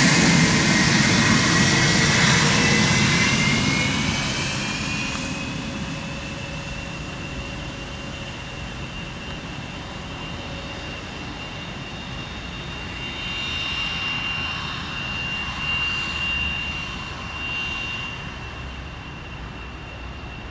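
Bombardier Challenger 350 business jet's Honeywell HTF7350 turbofan engines running with a high whine. The whine is loud at first, rises slightly in pitch and fades over the first few seconds, then holds steady and quieter, with a brief swell about two-thirds of the way through.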